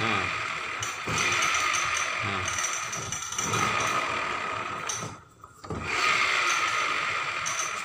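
Scooter final-drive gears spun up with a newly bought gear fitted: a steady mechanical whir in runs of one to two seconds, with a brief stop about five seconds in. It runs smooth, without the rough grinding of the worn gear.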